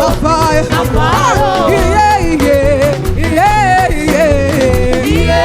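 Upbeat gospel praise-and-worship band music with a steady drum beat, a bass line and a lead voice singing the melody.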